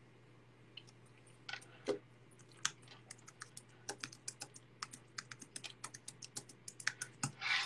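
Typing on a computer keyboard: irregular runs of quiet keystrokes over a steady low hum.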